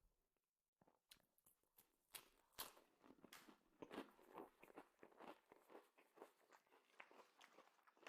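Faint close-up sounds of a person chewing and biting food: irregular small crunches and mouth clicks that start about a second in.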